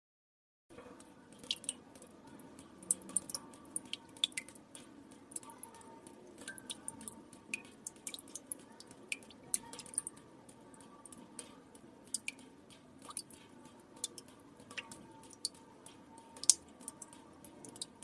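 Water drops falling into still water: irregular plinks and plops, several a second, some louder than others, over a faint steady background hum. The sound begins about a second in, after a brief dead silence.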